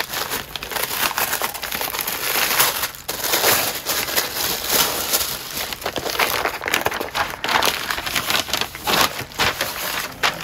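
A plastic mailing envelope and paper wrapping crinkling and rustling continuously as a package is unwrapped by hand, with many small crackles throughout.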